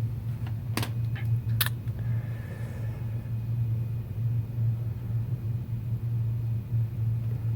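A steady low hum, with two sharp clicks about one and two seconds in, typical of small phone parts being handled on a repair bench.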